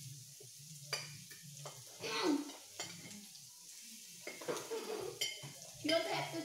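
Meat sizzling on the griddle plate of a tabletop raclette grill, a faint steady hiss, with forks clicking and scraping against plates and the grill a few times, loudest about two seconds in and near the end.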